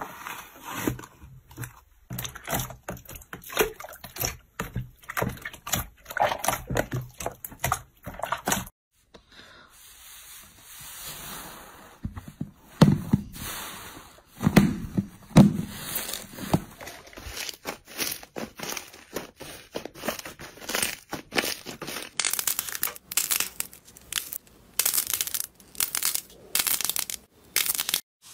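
Slime being pressed, stretched and poked by hand, giving dense crackling and popping. The sound changes abruptly several times as different slimes follow one another.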